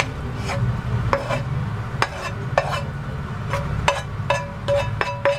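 A spatula scraping and knocking against a skillet as pilaf is pushed out onto a plate: a dozen or so irregular sharp clicks that come closer together in the second half, several leaving a brief ringing tone.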